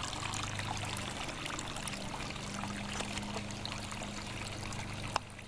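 Water trickling and splashing from the top cup of a tiered garden fountain into its basin, with a steady low hum underneath and one sharp click about five seconds in.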